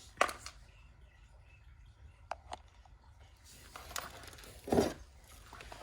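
Small handling noises of tools and wire at a workbench: a sharp click at the start, two light ticks, then a short scraping rustle near the end.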